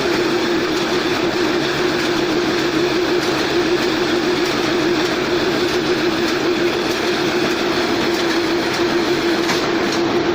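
Electric-driven round corn silage baler and film wrapper running steadily, with a continuous slightly wavering hum over a dense mechanical clatter.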